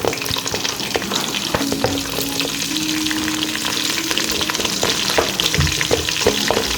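Food frying in hot oil in a pan: a steady sizzle with many small crackling pops.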